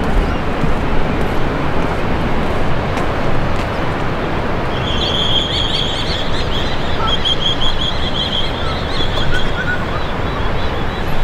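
Steady rushing of wind and surf. From about five seconds in, a bird calls in quick runs of short, high repeated notes.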